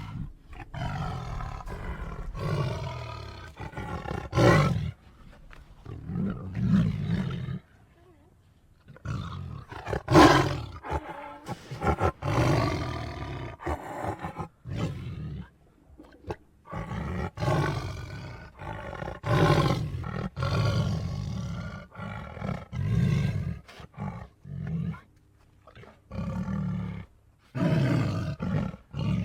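Were-cougar creature sound effects: a run of big-cat-style roars and snarls, each a second or two long, with short pauses between them.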